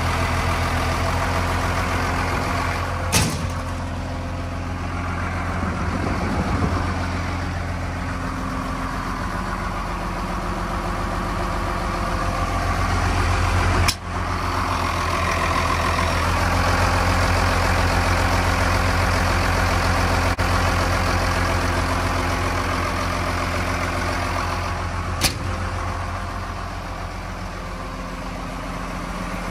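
A 1995 Case 621B wheel loader's 5.9-litre Cummins turbo-diesel idling steadily, with a sharp click about three seconds in, another midway and one near the end.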